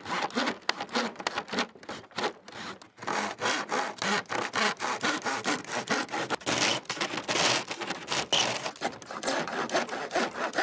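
Handsaw cutting through the thin wooden slats of a fence panel in quick back-and-forth strokes, with a brief pause a little under three seconds in.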